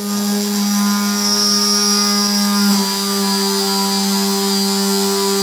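A Proxxon handheld rotary tool runs at high speed with a steady whine, its bit working the composite fuselage skin of a large RC jet model. The pitch sags slightly about three seconds in, as the bit takes load.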